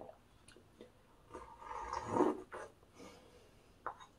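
Close-miked mukbang eating sounds: a few light clicks of cutlery on the dishes, and a longer crunching, scraping noise around the middle.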